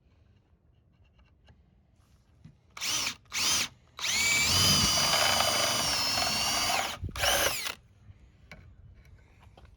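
Electric drill drilling a hole through a thin sheet-metal bracket: two short bursts, then a run of about three seconds whose whine rises as it spins up and then holds steady, then one more short burst.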